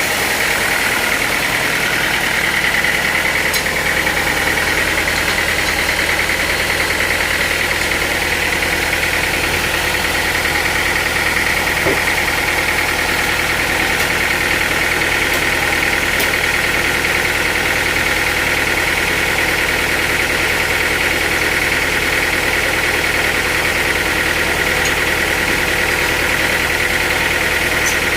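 Sawmill machinery running steadily. It is an engine-like drone with a constant high whine over it.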